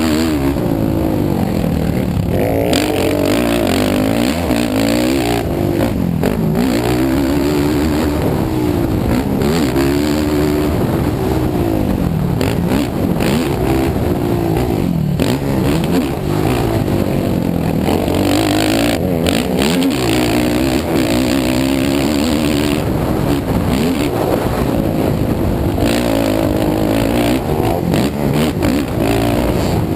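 Racing ATV engine revving up and dropping back over and over as the rider accelerates out of turns and backs off, heard from on board the quad, with constant wind rush over the helmet microphone.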